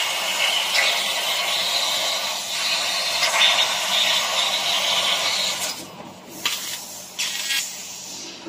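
12 kW fiber laser cutting 20 mm carbon steel plate: a steady loud hiss of assist gas and molten metal blowing through the cut. It breaks off about six seconds in, followed by two short bursts of hiss and a quieter hiss.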